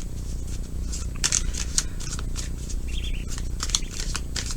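Tarot cards being shuffled and handled: a run of short, crisp card flicks and slides at an uneven pace, over a low steady hum.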